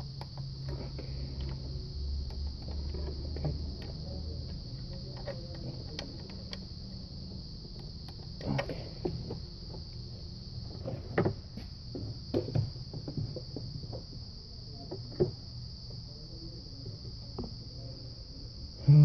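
Scattered light clicks and knocks of hand tools being handled during engine-bay work, over a steady high-pitched whine and a low hum that eases after about four seconds.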